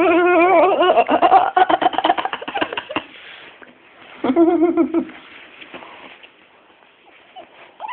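A dog whining in a long wavering cry that breaks into quick pulsed yelps for the first few seconds, then a second short whine about four seconds in, the vocalizing of a rough play-fight between dogs.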